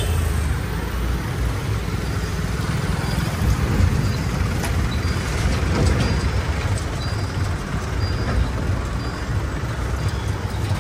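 Road traffic crossing a level crossing: motorcycles and scooters riding past, with a small pickup truck driving across close by near the end, over a steady hum of traffic noise.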